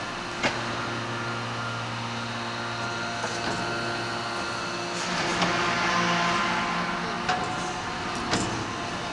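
2500-tonne hydraulic open die forging press running: a steady hum with several held tones, broken by a few sharp metallic knocks, the first about half a second in.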